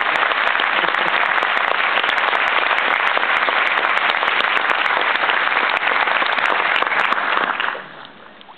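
Audience applauding, a dense steady clatter of many hands clapping that dies away quickly near the end.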